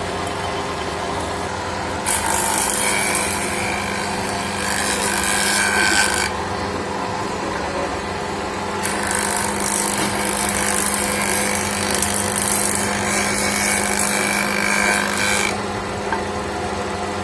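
Electric wood planer running steadily, cutting wood in two passes: the first starts about two seconds in and lasts about four seconds, the second, longer, runs from about nine seconds to fifteen.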